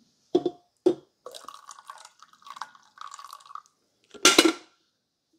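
The last of the coffee trickling and dripping from a glass carafe into a bowl: two drips in the first second, an uneven trickle for a couple of seconds, then a louder sharp knock near the end.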